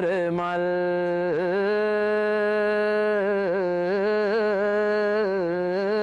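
A solo voice chanting a Sinhala folk verse, drawing out one long note with small wavering ornaments.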